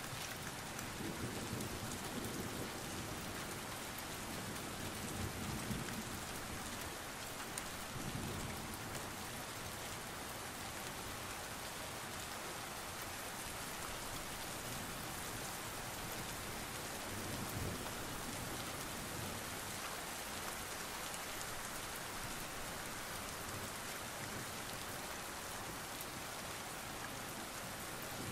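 Steady rain, an even hiss, with a few soft low rumbles here and there.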